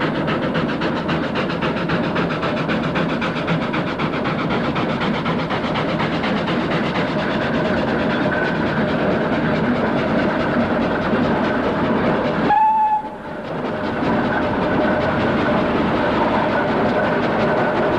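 An engine running on the road with a rapid, even chugging. The sound drops out briefly about twelve and a half seconds in.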